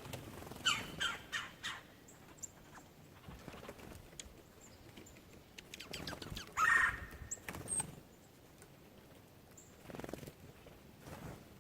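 Wild birds calling at a backyard feeder: a run of four quick falling calls about a second in, a louder call near the middle, and short high chirps scattered throughout.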